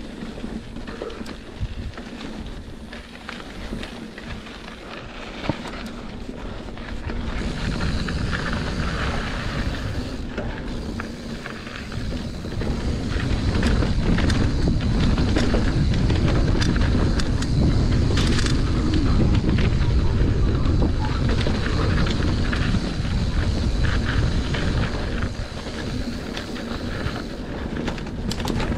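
Mountain bike riding down a dirt trail: wind rushing over the microphone, tyres rolling on dirt and the bike rattling and clicking. The rush grows louder about seven seconds in and louder again about thirteen seconds in.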